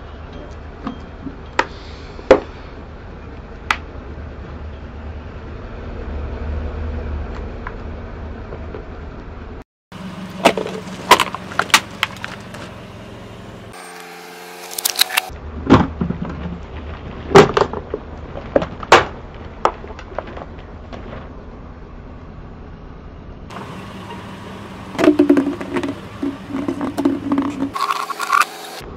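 Plastic food containers cracking and snapping as a car tyre rolls over them, in several separate crushes of sharp cracks, over the low steady running of the vehicle's engine.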